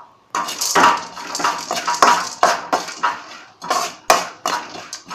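Long perforated steel ladle scraping and stirring roasted gram in oil around a hammered metal kadai: a quick series of metal-on-metal scrapes, about two a second, with a brief pause past the middle.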